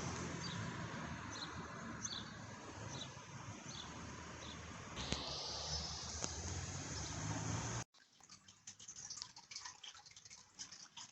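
A steady hiss with faint high chirps about every three-quarters of a second. About eight seconds in it cuts off suddenly, and a run of quick, irregular clicks follows: typing on a Roccat Pyro mechanical keyboard.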